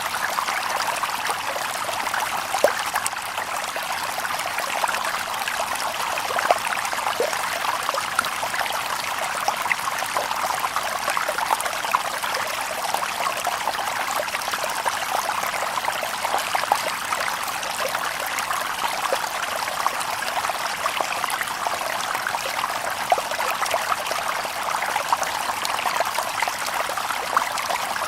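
A shallow stream babbling over stones: a steady, even rush of water with many small splashes and trickles throughout.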